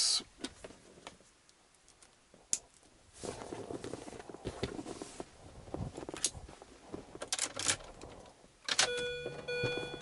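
Rustling and sharp clicks as cables and a cloth bag of gear are handled on a car seat. Near the end, a short electronic beep sounds twice.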